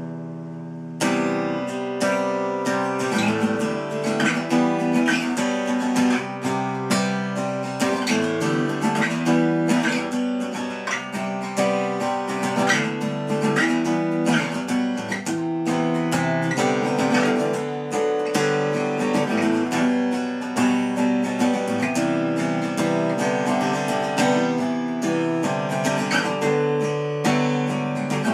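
Acoustic guitar played with a pick: a chord rings out and fades, then about a second in the picking starts again, running on as a steady flow of picked notes and strummed chords with no voice.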